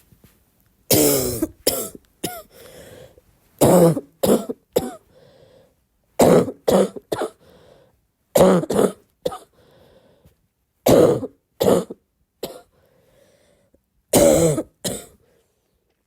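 A person's barking cough, coming in six fits about every two and a half seconds, each a loud cough followed by two or three quicker, weaker ones, with a faint noisy breath between some fits.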